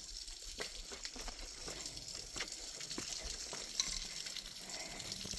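Small waterfall running with little water, only its small side flowing: a light, steady splashing hiss with scattered drips and ticks.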